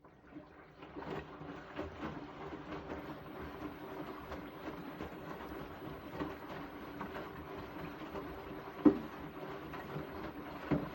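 Beko WTK74011W washing machine running at the start of a bedding wash: a steady hum with irregular clicking and rattling, and a sharp knock about nine seconds in and again near the end.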